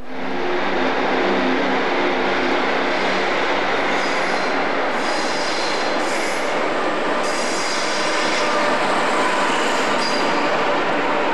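An electric locomotive-hauled train runs along the platform close by with a steady, loud rolling roar. From about four seconds in, its wheels give repeated high-pitched squeals. A low engine hum sounds in the first few seconds and fades out.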